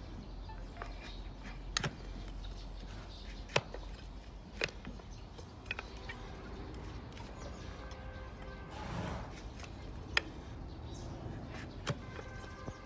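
A broad flat trimming blade cutting through a donkey's hoof horn in separate sharp chopping cuts, about seven of them at irregular intervals.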